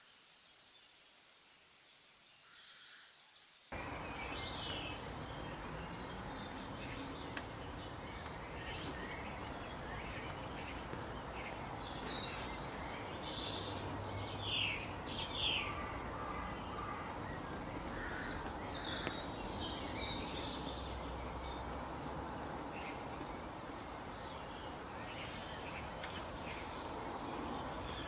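Outdoor ambience of many birds chirping and calling over a steady background hiss, starting abruptly about four seconds in after a few seconds of near quiet.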